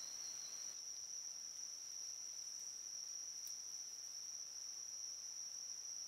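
Night insects trilling: one steady, high-pitched trill, with a second, lower trill that stops about a second in.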